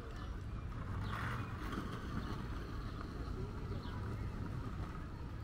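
Steady outdoor city-park ambience: a low rumble like distant traffic, with faint voices in the background.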